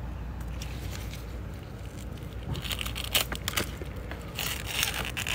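Dry, dead succulent leaves being pulled off and crumpled by hand, crackling in short crisp clusters from about halfway in.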